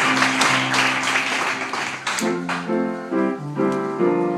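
Audience applause dying away over a piano playing sustained chords; about two seconds in the clapping fades and the piano chords come through clearly.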